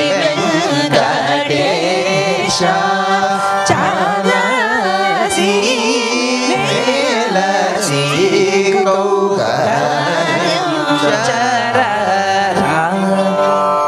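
Singers performing a Carnatic song, the melody sliding and ornamented over a steady drone, with mridangam strokes beneath.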